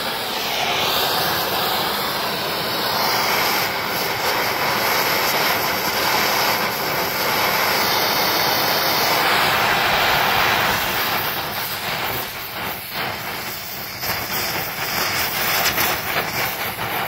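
Oxy-fuel torch flame hissing steadily while brazing cast iron with a flux-coated rod. The hiss is strongest and even for about the first ten seconds, then wavers and dips as the flame is moved about.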